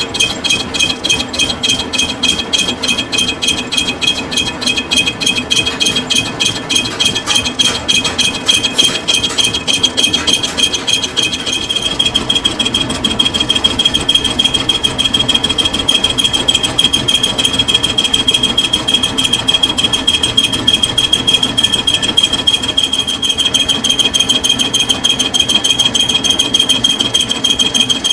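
Metal lathe turning a steel roller bush, a steady rapid rattle with a high whine from the cutting, getting a little louder about twelve seconds in.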